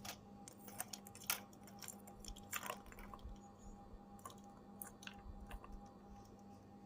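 Lovebird chewing or cracking seed: a string of small, irregular crunching clicks over a faint steady hum.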